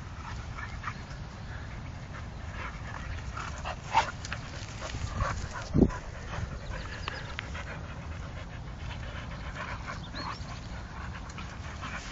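Dogs panting and scuffling during a dog fight, with two sharper, louder sounds about four and six seconds in.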